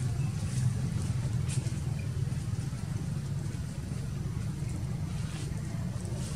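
A steady low rumble with a faint hum in it, and a few soft ticks over it.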